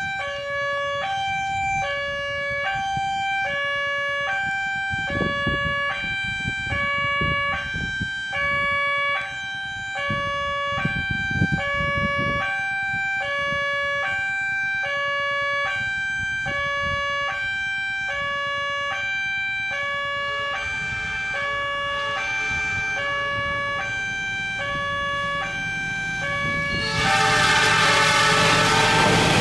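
Railway level-crossing warning siren alternating steadily between two pitches, with a coarse, hoarse tone. Near the end the noise of an approaching train swells and becomes the loudest sound.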